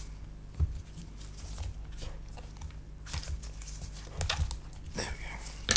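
Scattered small clicks, scrapes and crackles of a glued-in MacBook Pro battery cell being prised and worked loose from its adhesive, sharper near the end, over a steady low hum.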